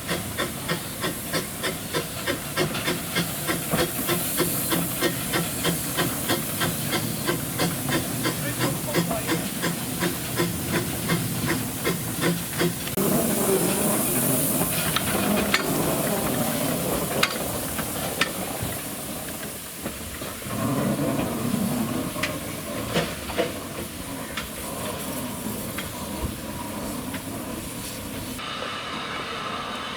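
Two small Hunslet quarry steam locomotives working together as they pull a train away: quick, even exhaust beats, about three a second, for roughly the first thirteen seconds. After that comes a steady hiss of steam with scattered sharp knocks and clanks.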